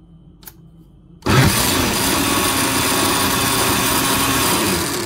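A click, then about a second in a Cuisinart Smart Power Duet blender starts abruptly and runs loud and steady, blending a jarful of liquid.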